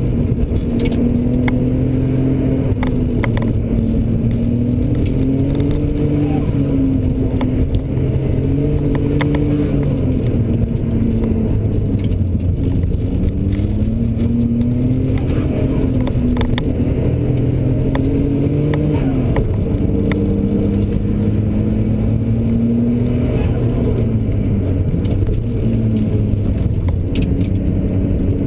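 A car's engine heard from inside the cabin under hard driving, its pitch climbing and falling again and again with throttle and gear changes, over steady tyre and road noise. Occasional small clicks and rattles are also heard.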